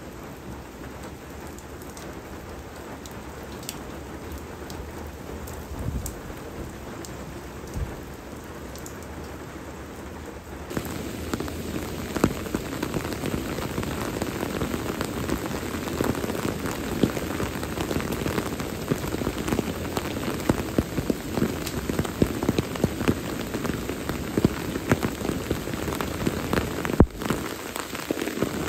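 Steady rain falling, at first a soft, even hiss. About ten seconds in it turns louder and closer, with many sharp ticks in the patter.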